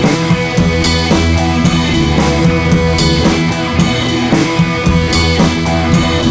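Background rock music with drums and a steady beat.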